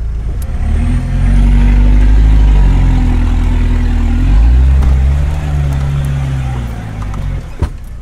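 Off-road 4x4 engine revving hard, heard from inside the cab: the revs climb about a second in, dip, climb again and fall away near the end. A single sharp knock sounds near the end.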